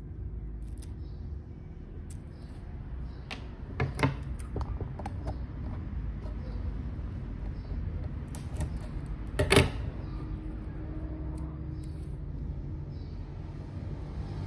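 Small handling sounds from working on a mini kite by hand: light rustles and ticks of plastic and paper, with two sharper clicks about four and about nine and a half seconds in, over a low steady rumble.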